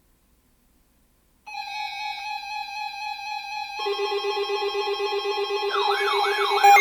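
Layered electronic alert tones building up. A steady beep-like tone starts about a second and a half in, a lower pulsing tone joins near the middle, and a rising-and-falling siren wail joins near the end, all growing steadily louder.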